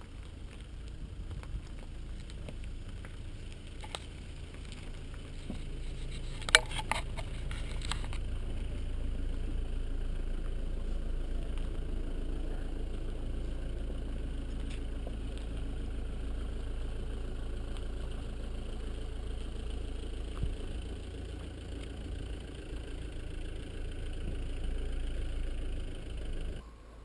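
Wind buffeting the microphone: a steady low rumble, with a few sharp knocks of handling noise about six to eight seconds in.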